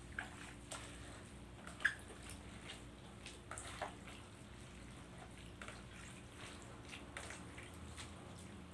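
Hands mixing and squeezing wet shredded bamboo shoots in a plastic basin: faint wet rustling and squishing with scattered small crackles and clicks.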